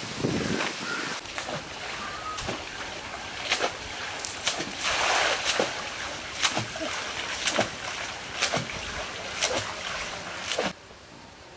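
Pond water splashing and sloshing, with many short sharp splashes and one longer splash about five seconds in. The sound drops away sharply near the end.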